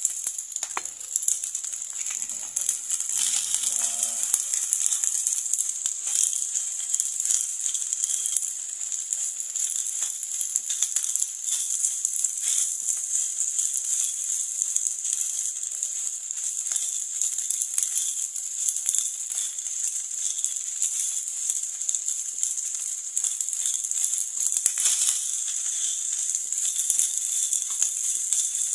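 Fried rice sizzling in a hot nonstick frying pan while a spatula stirs and tosses it, a steady hiss with quick scraping clicks of the spatula against the pan. An egg is cracked into the pan near the start.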